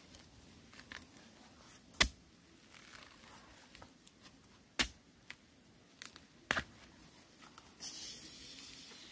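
A long digging pole driven into loose earth at the base of a bamboo clump to dig out a bamboo shoot: three sharp strikes a few seconds apart, with lighter scrapes and clicks of soil between. Near the end there is a short rustle.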